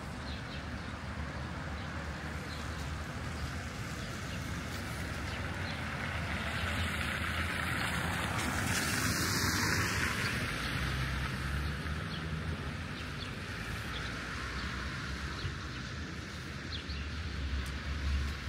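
A vehicle passing by, its noise swelling to a peak about halfway through and then fading, over a steady low hum of distant traffic.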